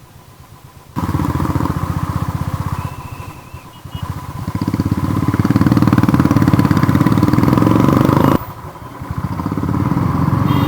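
Royal Enfield Thunderbird 350's single-cylinder engine pulling away and accelerating with a rapid, even thump. The engine gets loud suddenly about a second in, and its note drops back briefly twice, about three and a half and eight seconds in, before building again.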